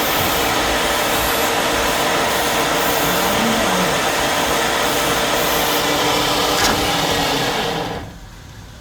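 A machine running with a loud, steady rushing noise that cuts off about eight seconds in.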